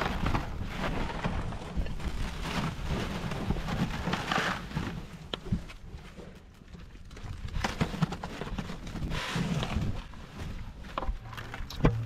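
Dry grain feed pouring and rattling out of a plastic bucket into a plastic feed trough, a crackling hiss that comes in uneven waves, with a low rumble underneath.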